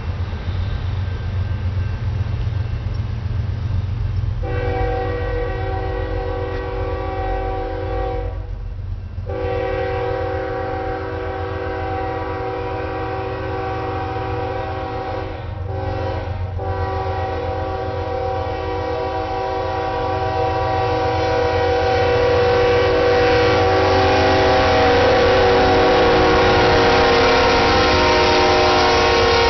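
Union Pacific diesel locomotive's air horn sounding the grade-crossing signal: two long blasts, a short one, then a final long blast that grows louder as the locomotive draws level. The steady low rumble of the approaching train runs underneath.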